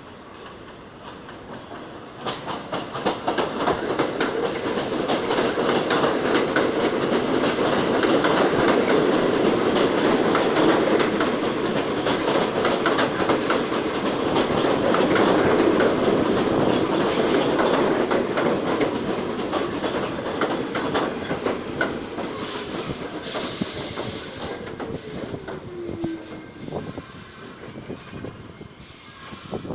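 New York City Subway A train running through the station, its wheels clattering over rail joints. It grows loud about two seconds in, then fades; near the end a falling whine and a short burst of hiss are heard as it slows.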